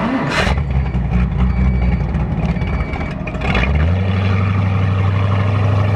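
John Allmand Super Nova 19 powerboat's engine running under way. Its note steps up to a higher, louder steady drone about four seconds in as the throttle is opened. There are two short rushes of wind and water noise.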